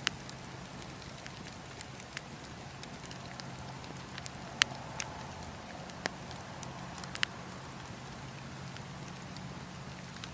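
Wood fire crackling, with irregular sharp pops and snaps, the loudest about halfway through, over a low steady hum.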